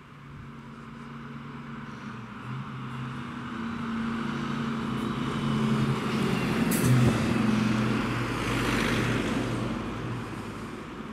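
Diesel engine and tyres of a MAN fire engine driving past, getting steadily louder to a peak about seven seconds in, then fading as it pulls away.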